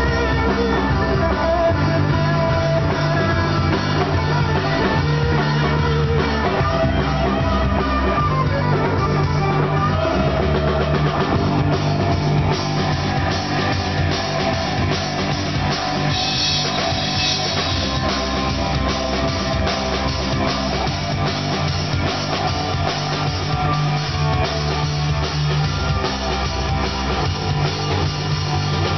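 Live rock band playing: electric guitars over a drum kit, steady and loud.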